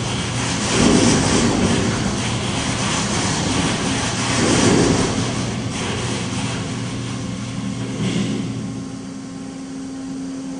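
Seismic test rig shaking a steel test frame and a suspended grooved-coupling pipe run, driven by a large hydraulic actuator. A steady low hum runs under a noisy mechanical rumble that swells twice and dies down near the end.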